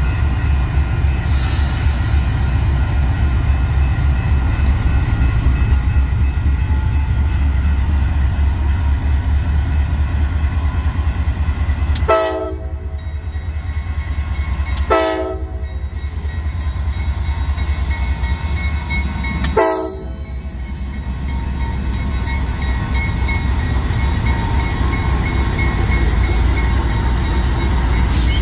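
CSX GE AC44CW diesel locomotive rumbling as it moves slowly along the track, sounding three short blasts on its multi-note horn: two about three seconds apart, then a third about five seconds later.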